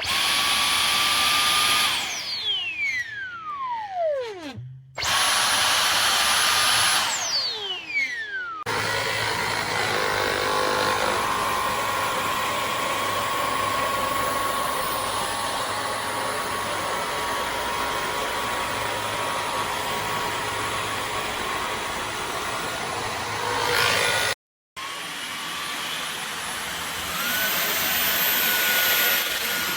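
Dyson V15 Detect cordless stick vacuum running with a high motor whine. Twice early on the trigger is let go and the motor spins down, its whine falling away, before it runs again steadily. Near the end its pitch steps up and then settles.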